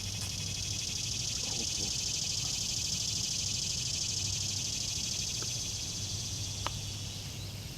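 Insects buzzing in a steady high-pitched chorus, a little louder in the middle, with one sharp click near the end.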